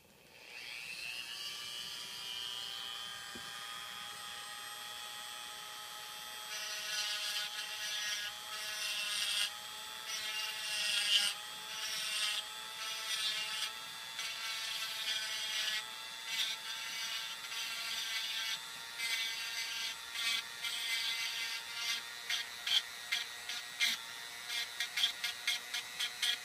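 Handheld rotary tool spinning up with a rising whine, then running steadily while its 1/8-inch carbide Roto Zip bit grinds into a wooden tobacco pipe bowl to rusticate it. The cutting comes in rough bursts that break into quick short strokes near the end.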